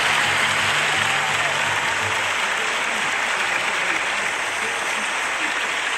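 Large crowd applauding, a dense steady clapping that keeps up throughout.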